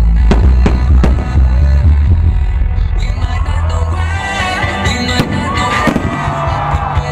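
Loud music with a heavy bass line accompanying a fireworks display. Sharp bangs of shells bursting cut through it: several in the first second or so, and more around five to six seconds in.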